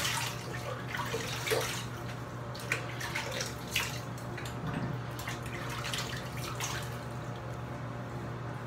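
Water from a running sink tap, splashed irregularly as hands scoop it onto the face to rinse off shaving lather; the splashing thins out near the end.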